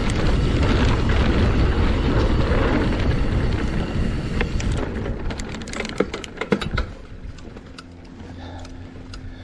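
Mountain bike riding fast down a rough dirt trail, with wind noise and tyre rumble on a chest-mounted camera. A run of sharp knocks and rattles follows, and the sound drops much quieter about seven seconds in as the bike slows.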